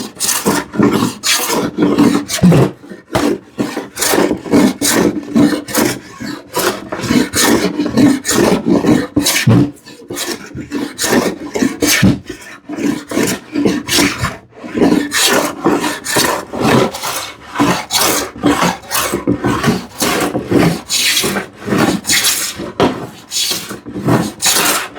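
Hand plane taking quick, repeated strokes across the grain of a glued-up wooden panel, about two rasping strokes a second with a few short pauses, levelling the boards and cutting away glue lines.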